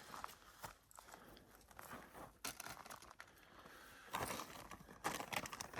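Irregular crinkling and rustling of gear being handled, with scattered small clicks and louder spells of rustling about four seconds in and again near the end.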